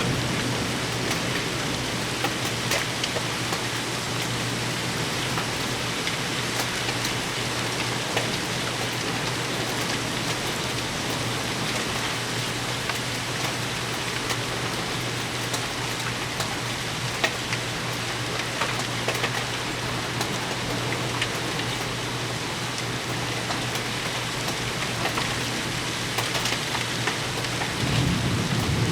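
Heavy thunderstorm rain falling steadily, with many sharp drop impacts heard through it. A low rumble of thunder begins near the end.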